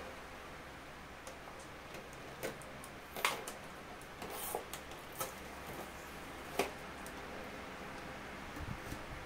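Clear plastic blister tray and plastic wrapping being handled: scattered crinkles and clicks, with a sharper crackle about three seconds in and another past six seconds.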